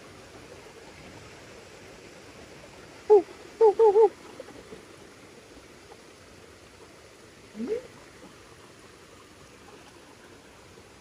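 Steady rush of running water, with a frog calling over it: one short note about three seconds in, three quick notes half a second later, and a short call rising in pitch near the eight-second mark.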